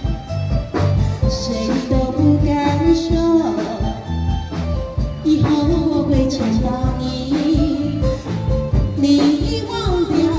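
Taiwanese opera (gezaixi) music through a stage sound system: a singer performing a melody with sliding pitches over instrumental accompaniment with a steady drum beat.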